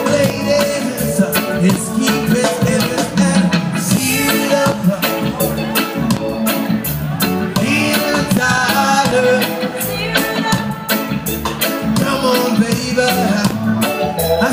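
A live reggae band playing over outdoor PA speakers, with a steady drum beat and a singer.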